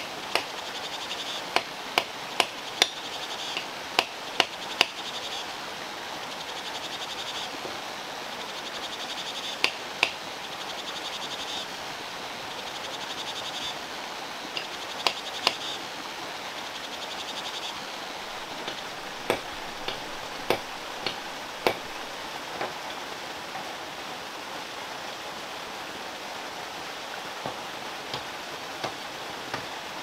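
Forest ambience: short pulsing trill calls repeating every few seconds over a steady hiss, with sharp single clicks scattered through, bunched in the first five seconds and again around the middle.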